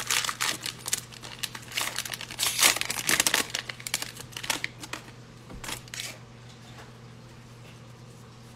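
Foil wrapper of a 2020 Panini Playoff football card pack crinkling and tearing as it is opened and the cards are pulled out. The crinkling stops about six seconds in, leaving a faint steady hum.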